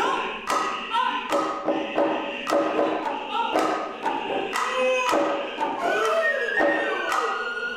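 Noh hayashi ensemble: the hand drums struck in sharp, dry strokes about twice a second, with short vocal calls from the drummers between strokes. About six seconds in, the high nohkan flute enters with a held, slightly falling note.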